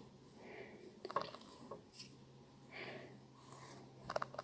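Faint handling sounds of hand needle lace work: soft rustles and a few small clicks as thread is drawn through sheer fabric. A faint steady low hum lies underneath.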